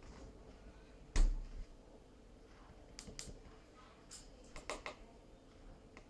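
One dull thump from a refrigerator door about a second in, followed by several light clicks and taps.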